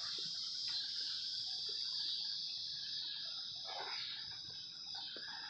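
A steady, high-pitched chorus of insects droning without a break, with a few faint short sounds beneath it.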